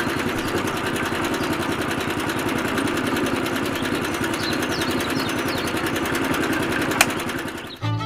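Small motor running steadily with a fast, even buzz, the kind that drives a miniature DIY tractor or concrete mixer; it cuts off shortly before the end, with a single sharp click about seven seconds in.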